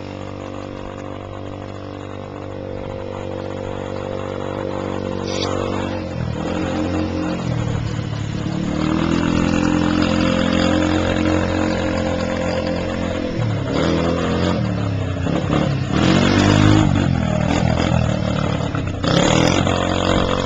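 Small youth ATV (quad) engine running, steady and fainter at first, then louder as the quad comes close. The engine note drops and climbs again several times as the rider eases off and opens the throttle.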